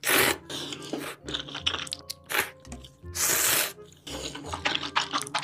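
Instant ramen noodles slurped in two long pulls, one at the start and a longer one about three seconds in, with wet chewing and small mouth clicks between.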